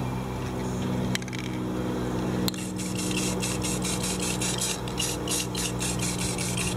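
Aerosol spray paint can spraying black paint in short, repeated hisses from about two and a half seconds in, over a steady low hum.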